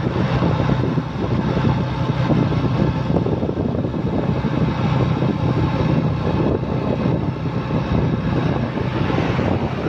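A vehicle driving at a steady speed: a low engine hum under a constant rush of road and wind noise.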